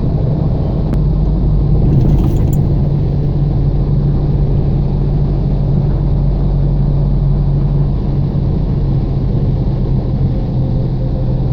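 Car driving along at a steady pace: a constant low rumble of engine and road noise with a steady hum, a single click about a second in.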